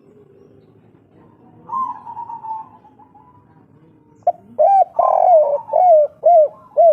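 Spotted dove (derkuku/tekukur) cooing its 'kuk 3' song. There is a softer coo about two seconds in, then from about four seconds a loud run of about six short coos, each rising and falling in pitch.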